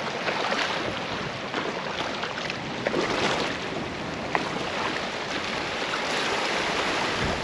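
Shallow seawater washing and lapping over a rock reef shelf, a steady rush with small splashes and clicks here and there.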